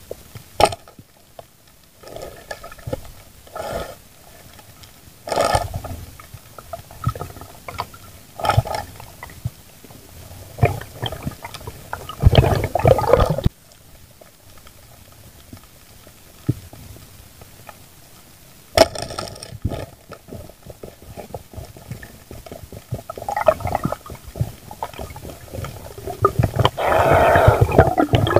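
A diver's breathing and water sloshing and bubbling during a night spearfishing dive, muffled by the water, in irregular breathy bursts. The longest bursts come about halfway through and near the end.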